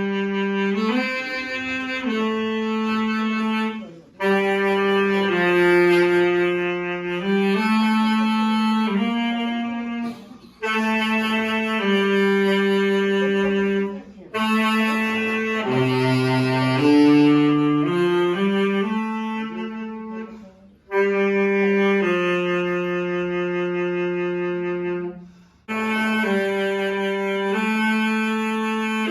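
Saxophone playing a slow melody in long held notes, in phrases of a few seconds each with brief breaks for breath between them.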